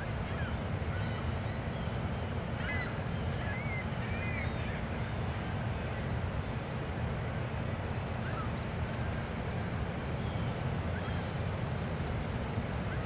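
Steady low rumble of an approaching Great Lakes self-unloading freighter's engines, with short chirping calls from water birds now and then over it.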